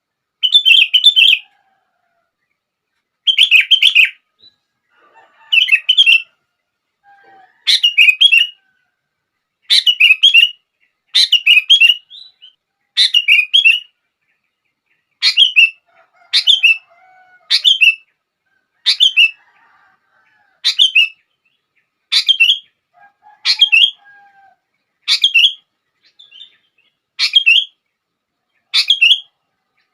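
Sooty-headed bulbul (kutilang) singing short, bright whistled phrases, one every one to two seconds with silence between. It is a lure song meant to start other bulbuls singing.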